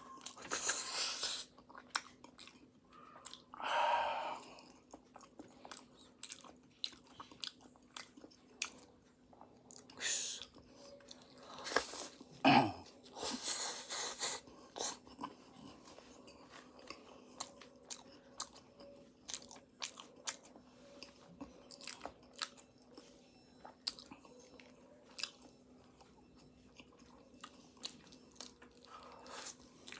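A person chewing and biting into pastry close to the microphone, with crunching and wet mouth clicks throughout and a few louder bites and mouth noises along the way.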